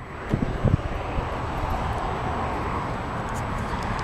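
Two short knocks in the first second as the driver's door of a 2004 Chevrolet Silverado pickup is pulled open, followed by a steady background rumble.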